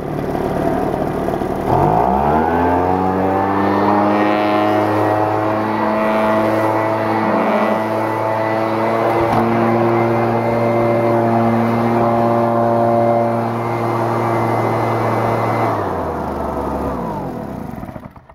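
Husqvarna 130BT backpack leaf blower's two-stroke engine running: about two seconds in it revs up to a high, steady speed, holds there, then drops back and fades near the end. By the owner's spark-plug reading it runs lean at high speed, having no high-end mixture screw.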